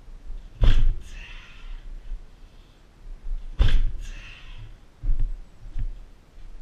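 Two heavy thuds about three seconds apart, each followed by a forceful exhale, then two lighter thumps near the end.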